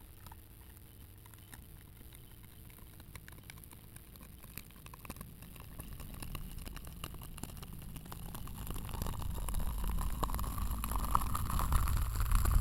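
Low rumble with scattered faint clicks, swelling steadily louder throughout, with a faint whine that rises in pitch over the last few seconds.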